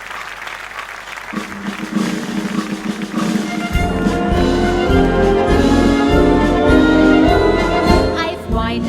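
Wind band, brass to the fore, starting a number about a second in with sustained brass chords as the last of the applause dies away. Bass and percussion join just under four seconds in, and the full band plays on in a steady beat.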